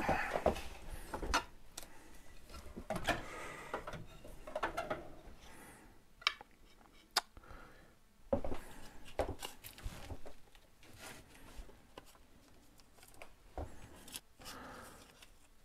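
Sheet-metal offcuts clinking, scraping and sliding against each other as they are picked through by hand in a steel drawer: scattered light clicks and rattles. Rustling of handled material near the end.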